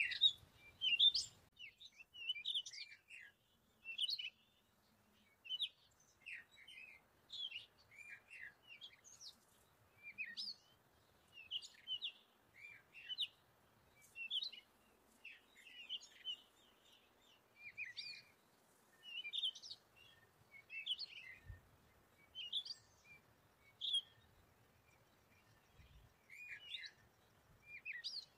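Small birds chirping repeatedly: short high chirps about once a second.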